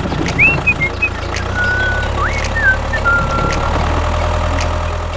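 Miniature toy tractor driving with a steady low engine rumble. A few short high chirps and light clicks sound over it in the first few seconds.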